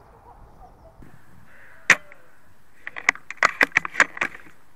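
Airsoft gunfire: one sharp crack about two seconds in, then a quick, irregular string of about ten cracks.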